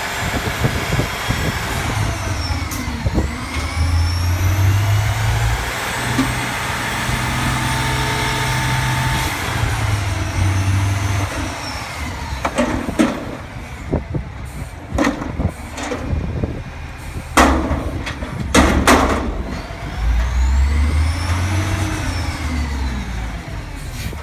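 Front-loading garbage truck's diesel engine revving up and down to drive the hydraulic lift arms, with a gliding hydraulic whine, while it empties a raised dumpster into its hopper. From about halfway through come several sharp bangs from the upturned container, then the engine revs again as the arms lower the dumpster.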